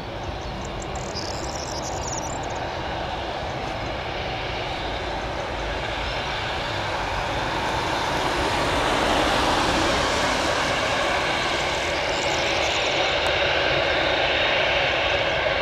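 Boeing 747-8F freighter's four GEnx jet engines during take-off: a dense jet noise that grows louder over the first eight seconds or so and then holds steady.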